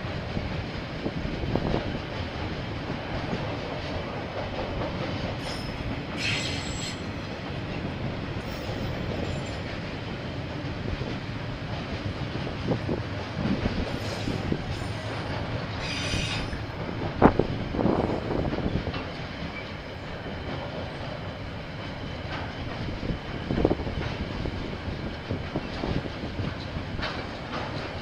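KiwiRail freight train's wagons rolling past on the rails with a steady rumble and clatter, punctuated by a few sharp knocks. Brief high wheel squeals come about six seconds in and again about sixteen seconds in.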